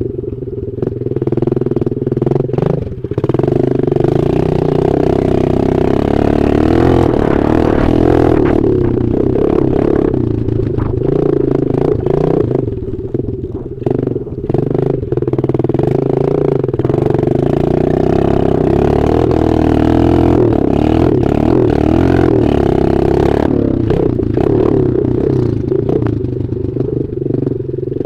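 Dirt bike engine heard from an onboard camera while riding, its revs rising and falling as the throttle is worked, with a few brief drops in revs through the corners.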